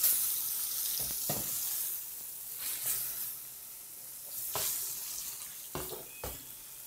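Swordfish steaks sizzling in a preheated, lightly oiled stainless steel pan just after being laid in; the sizzle dies down over several seconds. A few short knocks come through it.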